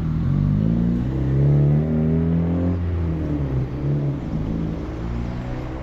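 A car engine accelerating, its pitch rising and falling a few times.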